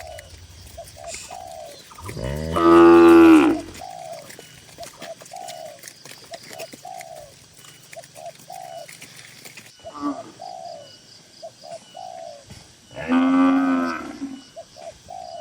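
Cattle mooing twice, long loud calls about two seconds in and again near the end, with short, higher-pitched calls repeating in between.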